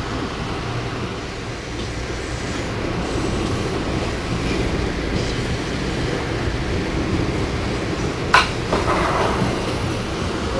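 Amtrak Silver Meteor passenger car rolling along the track, heard from inside the coach as a steady low rumble, with one sharp clank a little after eight seconds in.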